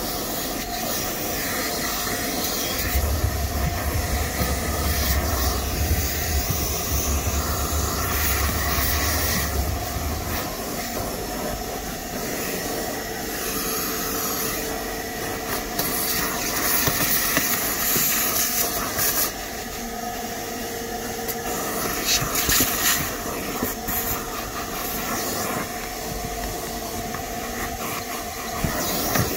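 Vacuum cleaner running steadily, its nozzle sucking up pet hair and dirt from under a car's rear seat. A low rumble joins it from about three to ten seconds in.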